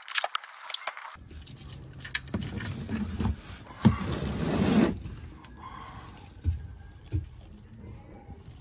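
Engine oil draining from a Honda Civic's oil pan drain hole into a drain pan, with metallic clicks and scrapes as the drain bolt is handled. The pour is loudest in the middle, with a sharp click near the loudest point, and then settles into a quieter trickle with a few knocks.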